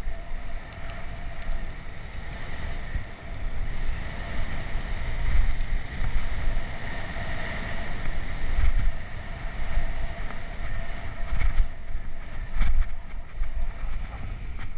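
Wind buffeting the microphone of a helmet-mounted action camera while riding a bicycle, with tyre rumble over cracked asphalt. A few sharp knocks come near the end.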